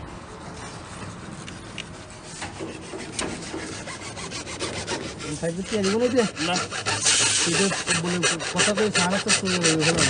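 Plastic sleeve pipe scraping against steel rebar as it is worked down into a beam's rebar cage: rapid rough strokes that grow louder about halfway through, with squeals of plastic rubbing on steel.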